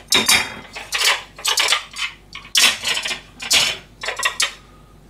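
Dishes clinking and clattering as they are set down and stacked on cupboard shelves, a run of short knocks about every half second that stops shortly before the end.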